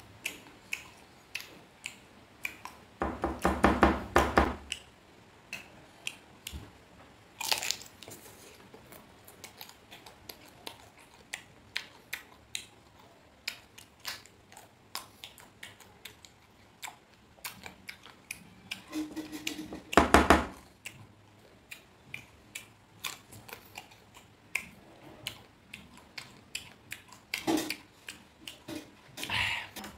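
Close-up chewing and crunching of firm green mango slices: many small wet crunches and mouth clicks, with a few louder moments around 4 and 20 seconds in.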